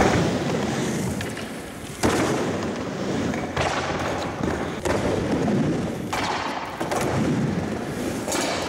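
Skateboard wheels rumbling as a skater rides back and forth on a mini ramp, with a sudden knock roughly every second and a half as the board rolls through the transitions.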